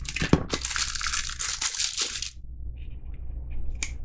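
Crinkling and rustling as something is handled, for about two seconds, then a few faint light clicks and taps.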